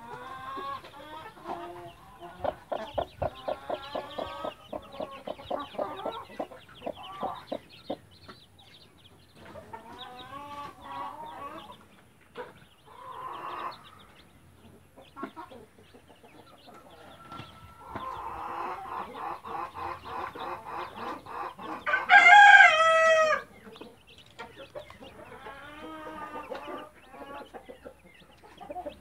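Chicks peeping over and over while a Brahma mother hen clucks among them. About three-quarters of the way in, a rooster crows once, loud, its call falling in pitch at the end.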